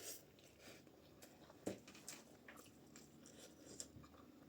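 Faint eating sounds: quiet chewing with scattered small clicks, one a little sharper about a second and a half in.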